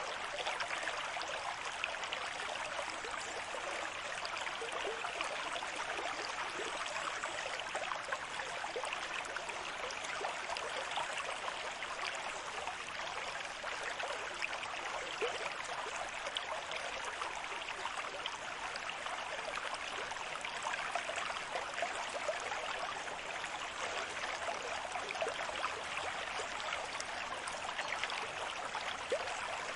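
Gentle ocean surf: a steady rush of water with a fine fizzing crackle, with no separate wave crests rising and falling.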